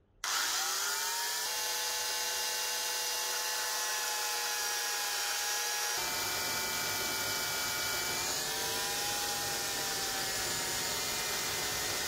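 Electric angle grinder with a buffing pad spinning up after a brief silence, then running at a steady high whine while polishing a steel bell dome. The pitch shifts a couple of times along the way.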